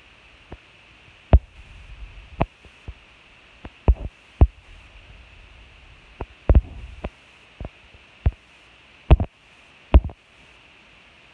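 Irregular sharp knocks and thumps, more than a dozen, over a steady hiss; the loudest come about a second in and twice near the end.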